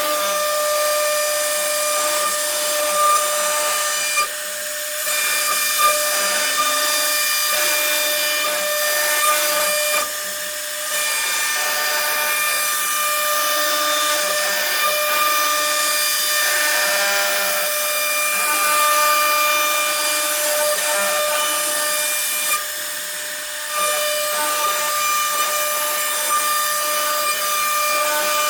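CNC router spindle whining steadily at a fixed pitch as it cuts a profile into wood, with a hissing cutting noise. The sound dips briefly about three times.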